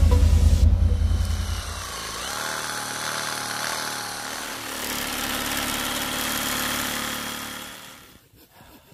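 Background music with a heavy bass fades out over the first two seconds. Then a small cordless chainsaw runs, cutting through a snow-covered fallen log, and stops shortly before the end.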